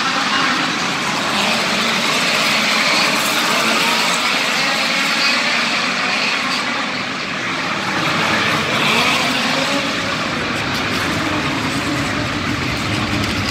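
Several midget race car engines running together on an indoor dirt oval, a steady blended engine noise whose pitch keeps shifting as the cars lap.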